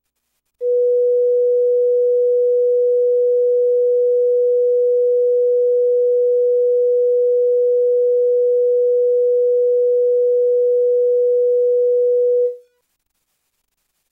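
Broadcast line-up test tone accompanying colour bars: a single steady, mid-pitched pure tone that comes on about half a second in and cuts off about twelve seconds later.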